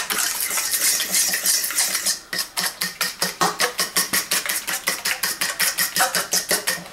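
Eggs and seasoning being beaten in a bowl with a metal utensil: a fast, even run of clinks against the bowl, about six a second, with a short pause about two seconds in.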